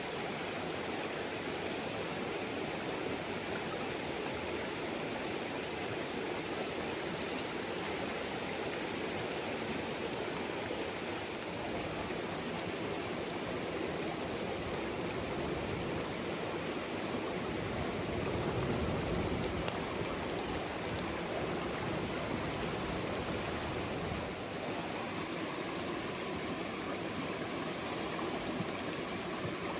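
Mountain stream rushing steadily over rocks, swelling slightly for a couple of seconds past the middle.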